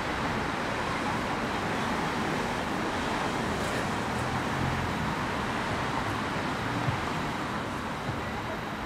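Steady outdoor background noise, an even rushing hiss like distant road traffic, with one brief click about seven seconds in.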